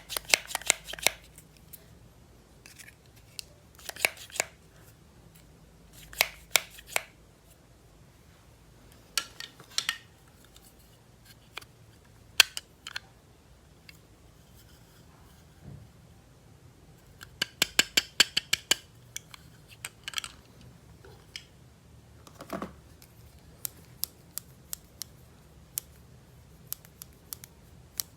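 Close-up handling of plastic toys and their packaging during an unboxing: groups of quick, sharp clicks every few seconds, with a dense run about two-thirds of the way through and scattered single clicks near the end.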